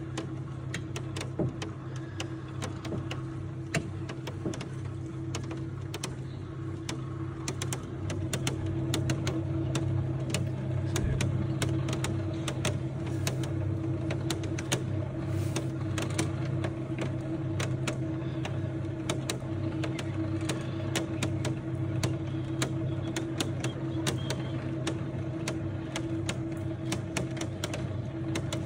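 Open cable lift running in a volcanic shaft: its machinery gives a steady hum, overlaid by many small clicks and rattles. It grows louder about eight seconds in.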